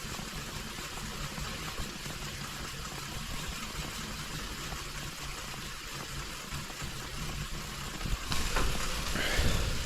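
Steady rushing noise with a low rumble from a bicycle ride, growing louder about eight seconds in.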